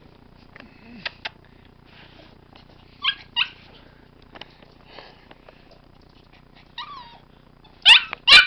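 A small puppy barking in short, high-pitched yaps: two about three seconds in, one more near the end, then two louder ones.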